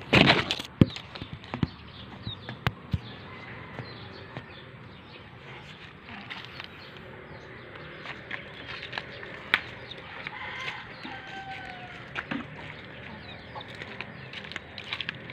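Backyard chickens clucking and calling now and then from the coop. A few sharp knocks in the first three seconds.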